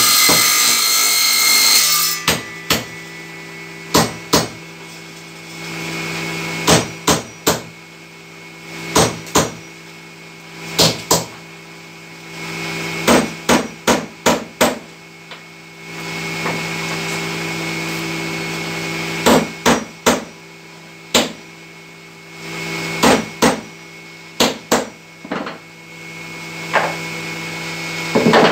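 Hammer blows on wooden planks, coming in quick clusters of two to five strokes with pauses between, over a steady low hum. A harsh rasping noise fills the first two seconds and then stops suddenly.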